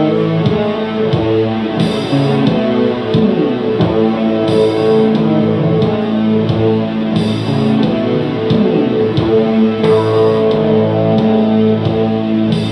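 Electric guitar playing held, sustained chords, with a short high hiss-like accent coming back about every two and a half seconds in a repeating pattern.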